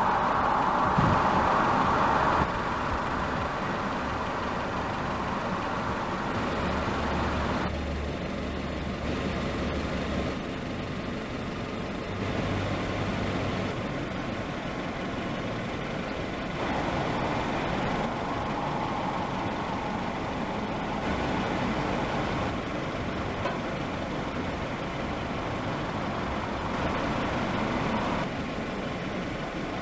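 Road traffic and heavy vehicle engines running, a steady noise that shifts abruptly in level several times.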